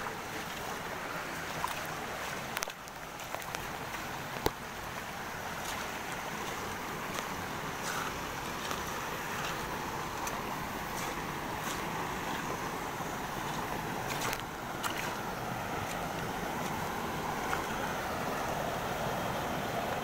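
Small waterfall and shallow rocky stream rushing steadily, growing a little louder through the second half. A few sharp clicks, the loudest about four and a half seconds in.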